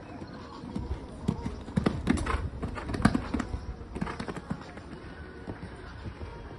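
Hoofbeats of a horse cantering on a sand arena, a run of muffled knocks that grows loudest about two to three seconds in as the horse passes close, then fades.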